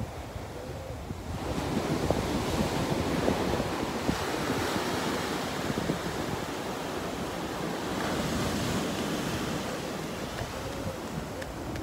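Ocean surf breaking and washing up a sandy beach, a steady hiss and rush that swells about a second in, with wind buffeting the microphone.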